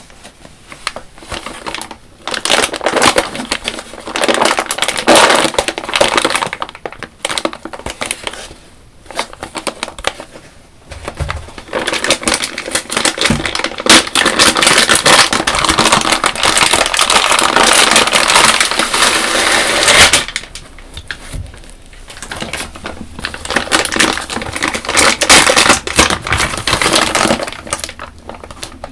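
Clear plastic packaging crinkling and crackling as hands squeeze and handle a wrapped yellow car wash sponge, in long stretches of dense crackle with short quieter pauses.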